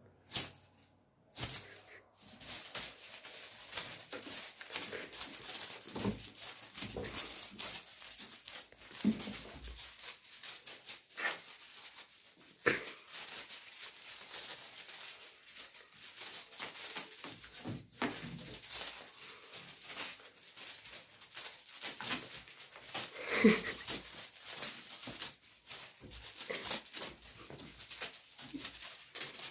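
Kittens scrambling and pawing on a fabric armchair: continuous crinkling and rustling with many small taps and knocks. A brief, sharper, louder sound comes about three quarters of the way through.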